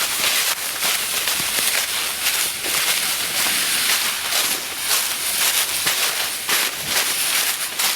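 Dry leaves and brush crunching and rustling, a dense irregular run of small crackles.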